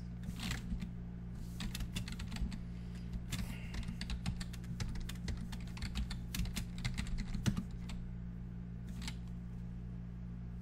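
Typing on a computer keyboard: a quick run of keystrokes for about seven seconds, then a pause and one more keystroke near the end. A steady low hum runs underneath.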